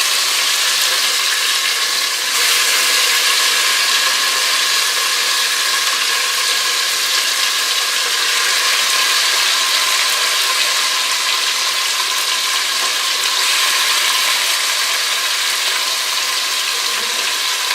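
Marinated chicken sizzling and spattering in hot mustard oil, a loud, steady, dense crackle.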